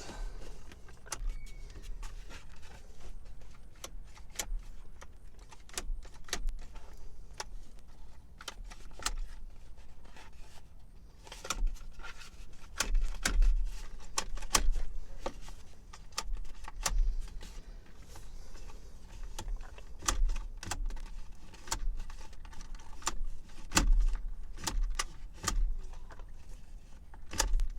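Irregular metallic clicks and clunks, with low thumps, from a seatbelt retractor being worked by hand; its locking mechanism keeps catching and will not let the belt go.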